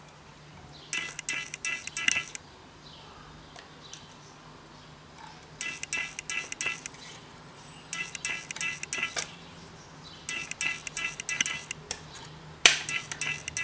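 Short bursts of rapid clicking, about five of them, each around a second long, from hand work on the diagnostic tool's casing as it is taken apart. The last burst is the loudest.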